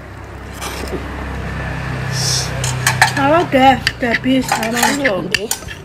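Spoons and metal serving pots clinking against plates as food is dished up and eaten, with a low hum swelling over the first few seconds and voices in the background in the second half.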